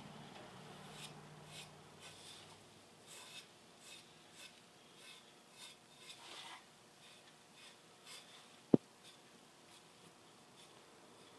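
Fine paintbrush stroking oxide onto a pot: soft, short, faint brushing strokes about once a second. A single sharp click about nine seconds in.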